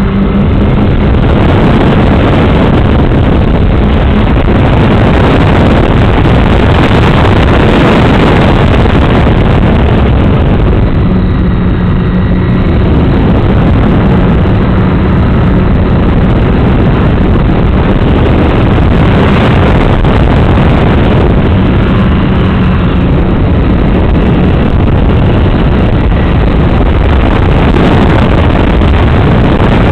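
FPV model aircraft's motor and propeller in flight, heard through its onboard camera's microphone, with a steady low hum under loud, constant wind rush. The hum fades out and back in around the middle.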